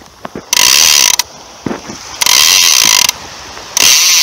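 Big-game conventional fishing reel ratcheting in three loud bursts of about a second each, with short gaps between them. Its clicker and drag buzz as the spool turns under the strain of a big shark on the line.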